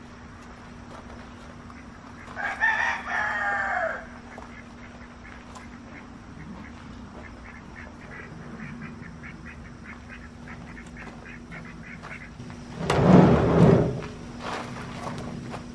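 A rooster crows once, about two seconds in, a call lasting about a second and a half. Near the end comes a loud metal clatter and scrape as the steel snow-plow frame is lifted off the pickup's tailgate.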